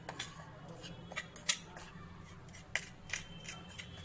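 Stainless steel spoon scraping and clinking against a stainless steel bowl as dry spice powders are stirred together, in a series of separate scrapes and ticks, the sharpest about a second and a half in.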